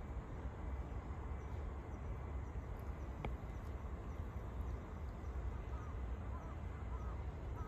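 Outdoor ambience: a steady low rumble, with one sharp click about three seconds in and a few faint short chirps near the end.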